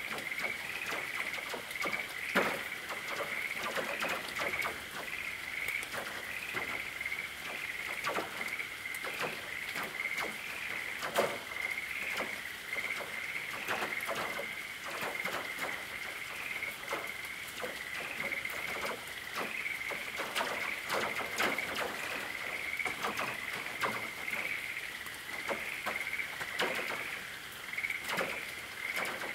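Rain falling on a tin roof: irregular taps of dripping drops, with some louder single drops standing out. Underneath, a steady high trill that pulses about twice a second.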